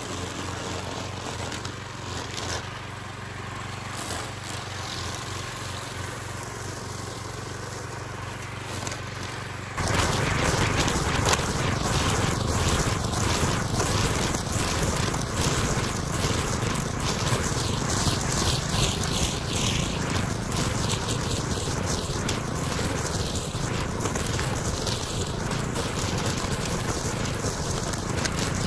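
Walk-behind wheeled string trimmer's small gas engine running steadily as its line cuts through tall grass. It gets noticeably louder about ten seconds in and stays louder.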